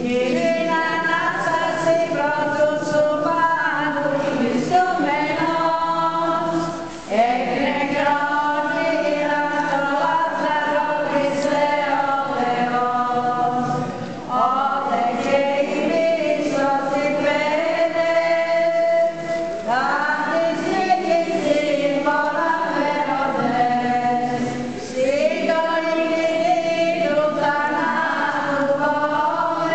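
A group of voices singing a Byzantine-rite liturgical hymn, in sung phrases of several seconds each with brief breaths between them.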